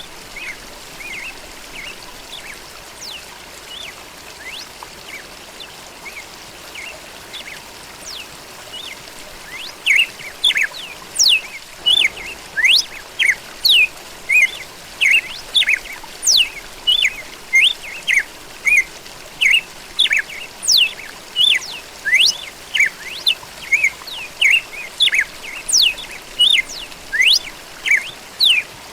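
Songbirds chirping over a steady faint hiss. From about ten seconds in, a bird calls loudly and rapidly, about two short sweeping notes a second.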